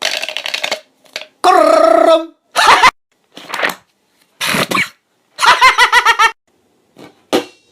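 A person's voice making a quick series of short mouth-sound imitations, including a gurgling "kkoreureureum" about two seconds in, with brief silences between them.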